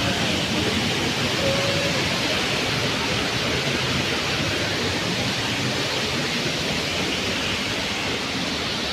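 A waterfall in full flow: a steady, even rush of falling water.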